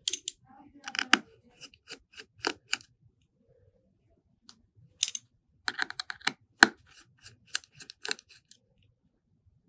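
Small repair tools clicking and tapping on the parts of an opened iPhone XS Max as they are worked loose: a run of light, sharp clicks over the first three seconds, and another from about five seconds in until past eight.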